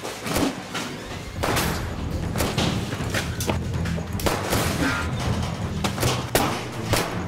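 Film gunfight sound effects: about ten sharp gunshots, irregularly spaced, over an action score with a steady low pulse.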